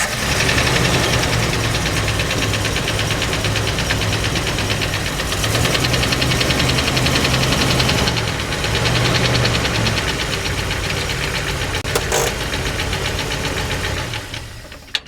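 Jeep 4.0L straight-six engine running with a rapid, steady knocking and ticking over its hum. Near the end it fades out.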